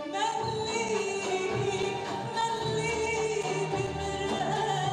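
A female singer sings an Arabic song live into a microphone with orchestral accompaniment, strings included, holding long notes of about a second each.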